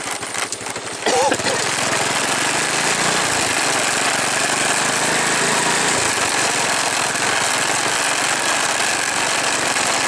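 Motorcycle engine running as it rides along a lane, its pitch shifting as it speeds up and slows, under heavy wind rush on the microphone.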